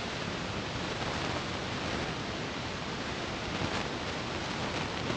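Hot oil sizzling steadily in a miniature frying pan as a small puri fries.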